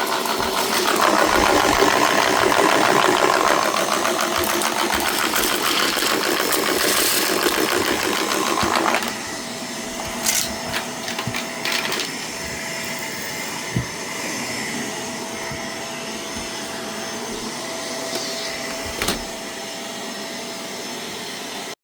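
Shark vacuum cleaner running with a steady motor whine. About nine seconds in, the sound drops to a quieter, steadier hum with a few clicks.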